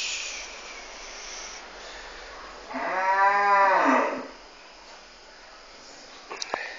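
A single drawn-out, moo-like animal call about three seconds in, lasting about a second and a half and rising then falling in pitch. A few short clicks follow near the end.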